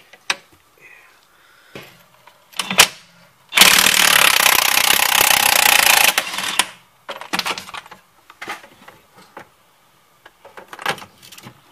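Cordless DeWalt impact wrench hammering on a rear strut bolt in one long burst of about two and a half seconds, with shorter bursts and sharp metallic clinks of tools before and after.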